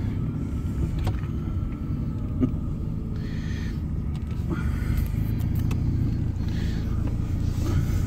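A car driving slowly, heard from inside the cabin: a steady low engine and road rumble, with a click about two and a half seconds in and two brief hissing swells.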